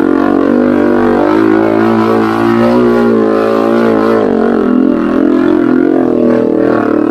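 Small Honda underbone motorcycle engine running loud and steady under load, its pitch rising about a second in and dropping back a little after four seconds as the throttle is opened and eased.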